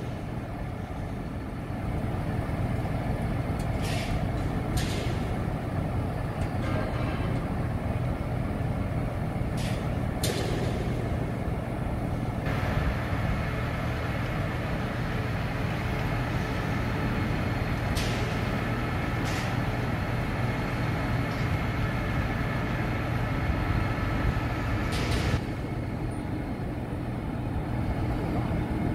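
Diesel engine of a Zoomlion truck-mounted crane running steadily under load as it hoists a 10-tonne roof cone, picking up about two seconds in and easing near the end. Short sharp hisses come several times.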